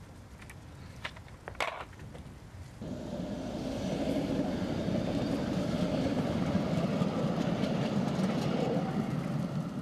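Two sharp knocks about a second in, then an MBTA Green Line light-rail train passing close by: a steady rumble of its wheels on the rails that comes in about three seconds in.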